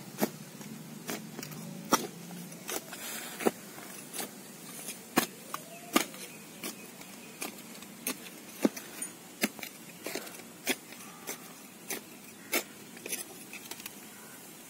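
Small metal hand digging tool striking and scraping stony soil, giving sharp irregular clinks and clicks about once or twice a second.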